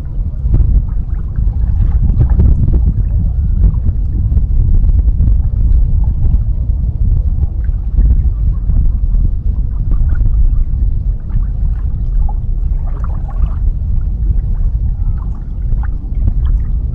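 Loud, steady low rumble of a small boat under way on a lake, a mix of wind and water noise, played back sped up.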